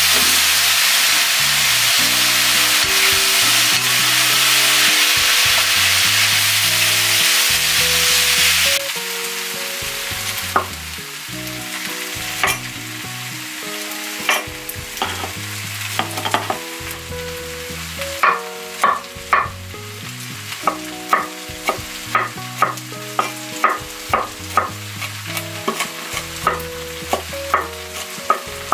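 Beef, red pepper and onion sizzling in a wok as they are stir-fried, cutting off abruptly about nine seconds in. Then a cleaver chops broccoli on a wooden board: a few scattered strikes at first, then quick runs of chops, about two a second. A soft background melody plays throughout.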